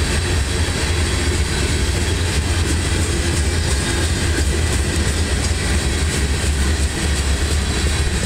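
Loaded covered hopper cars of a freight grain train rolling by: steel wheels on rail make a steady, loud, low rumble.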